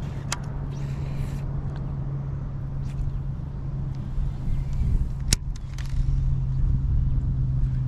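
Electric bow-mounted trolling motor on a bass boat humming steadily, over a low rumble. Two sharp clicks, about a third of a second in and again about five seconds in.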